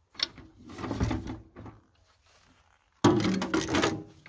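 The welded steel seat plate of a tractor seat is handled and set back onto its mount, clattering and scraping in two bursts, the second beginning with a sharp thunk about three seconds in.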